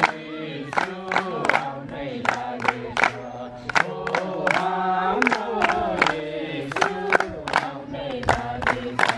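A group of voices singing together in a slow, sustained melody, with a sharp percussive beat about two to three times a second keeping time.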